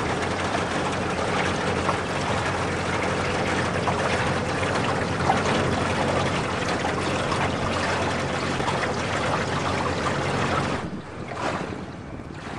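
Small boat's motor running steadily with water washing along the hull as it moves through the harbor. About eleven seconds in it breaks off to quieter, gusty wind noise on the microphone.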